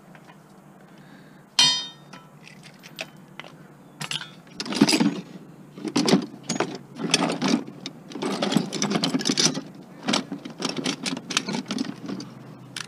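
Scrap metal being handled and dropped: one ringing metallic clang about a second and a half in, then a long run of irregular clattering and knocks.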